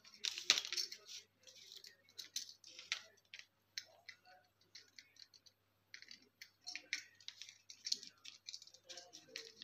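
Irregular small clicks and rattles of stiff copper wire ends and a plastic two-way switch being handled as the wires are fitted into its screw terminals, the loudest clatter about half a second in.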